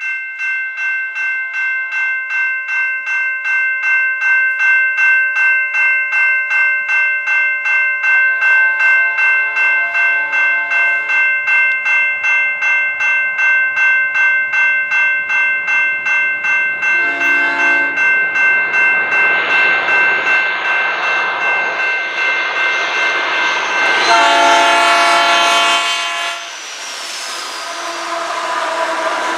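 Level crossing bell ringing steadily while an approaching GE AC4400CW diesel locomotive sounds its horn for the crossing: a long blast, a short one, then a final loud long blast as it arrives. In the last few seconds the locomotives and freight cars rumble past on the rails.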